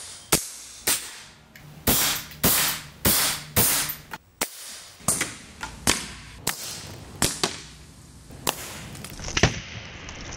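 A quick series of sharp shots, about fifteen, roughly half a second apart with a brief pause midway, from a .25 caliber AEA HP SS precharged pneumatic air rifle. It is fired unsuppressed through its short barrel.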